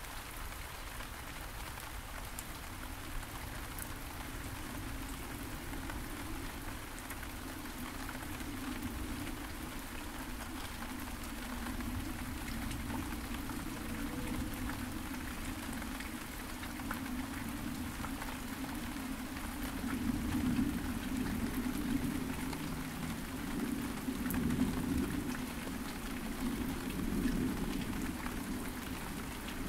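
Steady rain falling on several kinds of garden surfaces, with scattered individual drops ticking close by. A low rumble grows louder over the second half.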